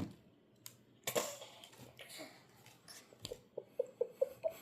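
Small plastic toy parts being handled: a brief rustle about a second in, then a quick run of light, hard clicks and taps, about three a second, near the end.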